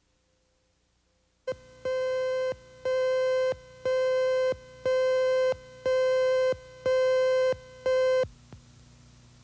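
Countdown leader tone on a TV news videotape: a buzzy, mid-pitched beep sounding once a second, seven times, each about half a second long, counting down to the start of the next news story.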